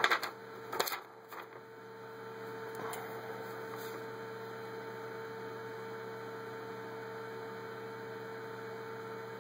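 Steady electrical hum with one constant tone, and a few short rustles of a paper packing slip being handled in the first second.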